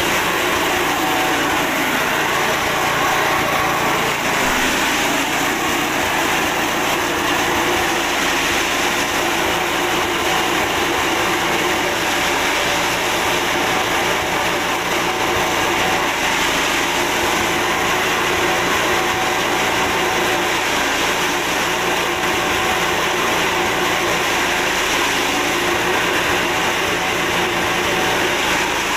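A 6.5 hp petrol engine running steadily, driving a forage chopper whose roller-fed six-blade cutter is chopping dry corn stalks as they are fed in.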